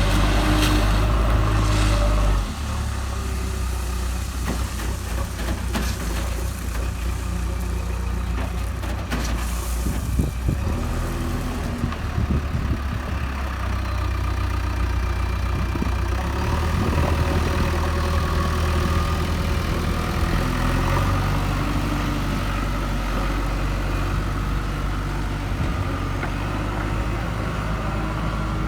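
JCB 3DX backhoe loader's diesel engine running under changing load, its note shifting as the machine works. It is loudest for the first two seconds or so, then drops suddenly, and a few knocks sound around the middle.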